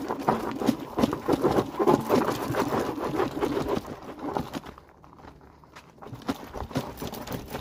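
Loose gravel and stones crunching and clattering as the e-bike is taken down a rocky trail, a quick run of clicks and rattles. It goes quieter for about a second past the middle, then picks up again.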